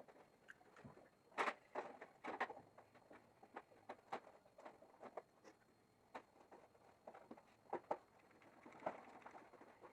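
Faint, scattered clicks and light knocks of hand work on wood and tools in a small room, with two louder knocks about one and a half and two and a half seconds in and two more near the end.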